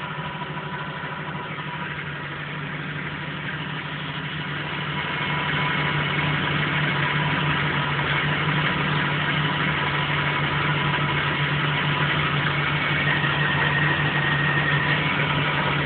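Rebuilt car engine idling steadily, getting louder about five seconds in. It makes a running noise that the owner puts down to the transmission.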